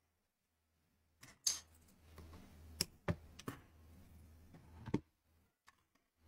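About half a dozen faint, scattered clicks and taps as hands handle a pair of scissors and a braided cord bracelet on a wooden tabletop, over a faint low hum.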